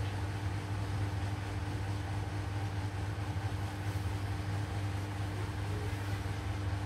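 Steady low mechanical hum with a faint higher steady tone over it, unchanging throughout.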